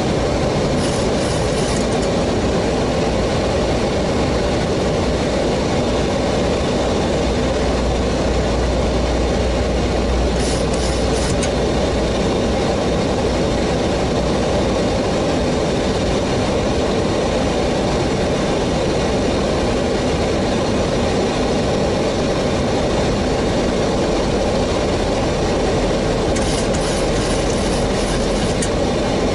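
Steady cockpit noise of an airliner in flight on approach: an even rush of airflow and engine sound, with a few brief faint crackles.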